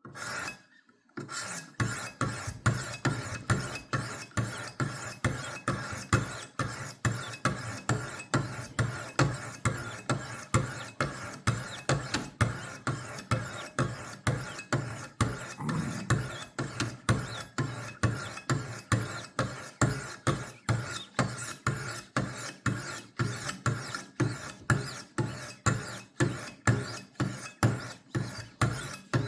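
Sharpening stones of a Wicked Edge WE60 guided sharpener stroked against a knife edge, a rasping stroke repeated about two to three times a second. The strokes start about a second in and keep an even rhythm.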